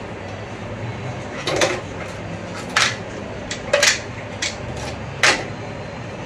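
Half a dozen short, sharp clicks and taps of small hard objects being handled, coming irregularly, over a steady low hum.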